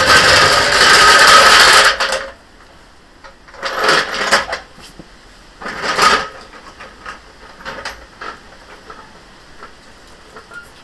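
Steel-wheeled trolley jack dragged across stone paving slabs, a loud rattle that cuts off about two seconds in. Two short scraping rattles follow as it is shoved into place under the car, then light clicks and knocks of the jack being worked.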